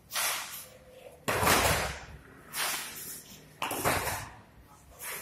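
Five sharp, hissing bursts about a second and a quarter apart, one with each forceful beng quan punch and following step of the Xingyi practitioners: feet striking the tiled floor and clothing snapping.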